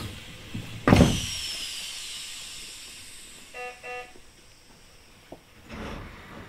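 Keisei 3000-series train standing at a station, heard from just behind the cab: a loud thump about a second in, trailing off into a falling hiss, then two short electronic beeps, then another dull thump near the end.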